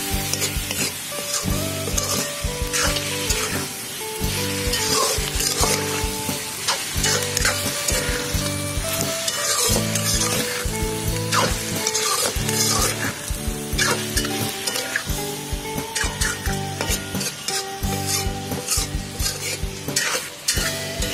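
Chunks of pork and pork intestine sizzling in a hot aluminium kadai while a metal spatula stirs and scrapes them round the pan in repeated strokes. Background music with a steady rhythm plays underneath.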